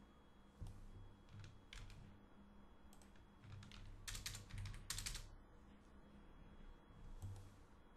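Computer keyboard keystrokes: a few separate taps, then a quick run of keys about three and a half to five seconds in, and one more tap near the end.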